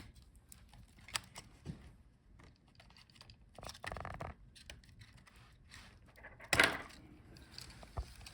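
Small plastic parts being handled: scattered light clicks and short scrapes as a laptop speaker is pulled out of its rubber grommets and its cable unplugged from the motherboard, with one louder brief rustling scrape about six and a half seconds in.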